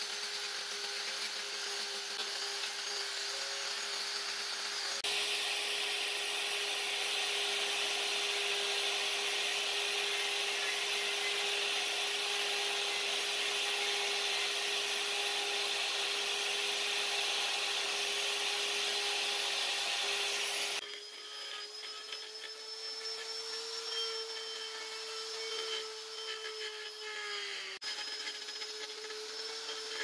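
Electric rotary carving tool with a small burr bit grinding into hardwood, its motor whining steadily under a hissing cut. The sound changes abruptly about five seconds in, where the grinding grows louder, and again about twenty seconds in, where it drops to a quieter cut with a slightly higher whine.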